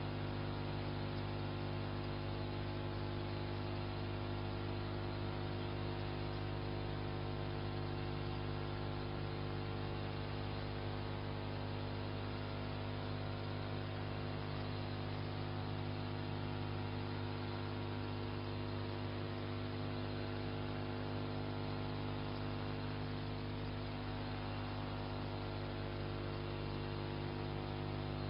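Steady electrical mains hum with many overtones over a faint hiss.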